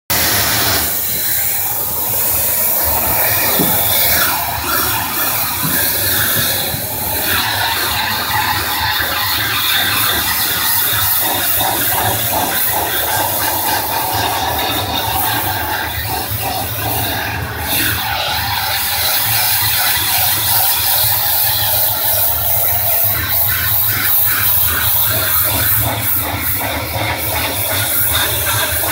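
Pressure washer jetting water onto the concrete pool floor: a loud, steady hiss of spray over the constant low hum of the machine.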